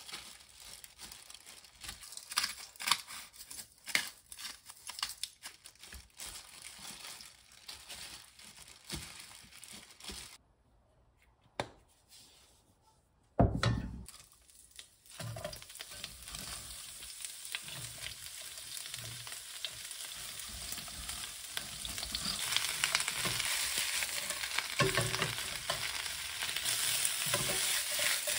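Crinkling and light clicks of a plastic glove handling raw meat on a foam tray, then a single loud thump. After that comes a steady sizzle of cabbage stir-frying in oil in a wok, with stirring, growing louder over the last few seconds.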